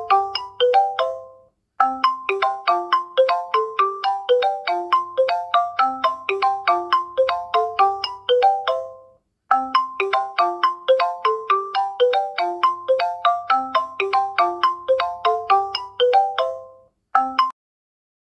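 Android phone incoming-call ringtone: a quick marimba-like melody of struck notes that plays as a loop about every seven and a half seconds, with brief pauses between repeats. It breaks off after a single note near the end and falls silent.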